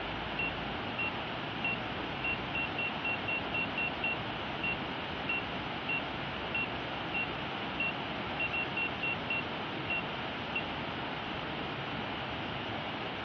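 A drone flight app's warning beeps: about twenty short, high electronic beeps over ten seconds, irregularly spaced and sometimes in quick runs, as the obstacle-proximity warning shows on screen. They sound over a steady hiss and stop shortly before the end.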